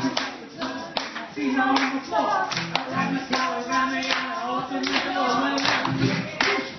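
Live singing with acoustic guitar, with people clapping along in time at about two claps a second.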